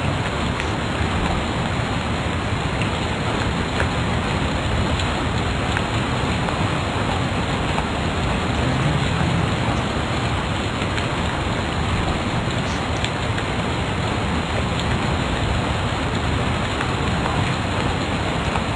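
Steady, even hiss of background noise, unchanging throughout.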